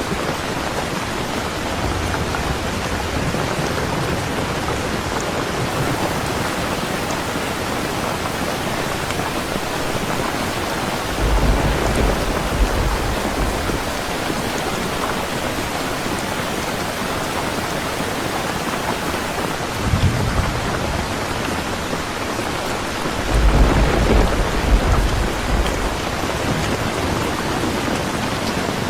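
Steady rain, with low rumbles of thunder about a third of the way in, again about two-thirds in, and a longer one soon after.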